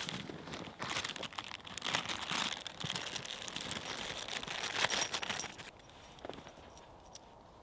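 Crinkling and rustling handling noise with many scattered small clicks and knocks, dying away about six seconds in.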